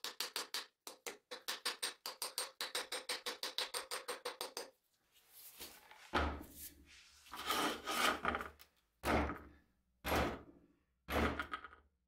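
A claw hammer taps fast and evenly, about six blows a second, driving a wedge into the top of an axe handle. The tapping stops about five seconds in. From about six seconds in, heavier knocks with a deep thud follow, about once a second, as the rehung axe is knocked.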